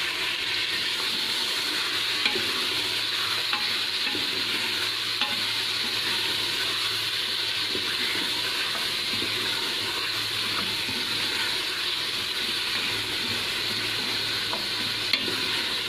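Meat, onions and tomatoes sizzling steadily in ghee in an aluminium pressure cooker as they are stirred with a wooden spoon: the masala being fried (bhuna) with the tomatoes freshly in. A couple of short sharp clicks stand out, about two seconds in and near the end.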